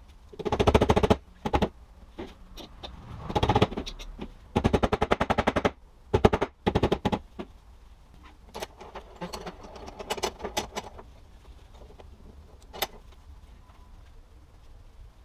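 Several bursts of rapid, ratchet-like metal clicking as a CV axle is reassembled with hand tools, the longest running about a second. Lighter scattered clicks and single ticks follow in the second half.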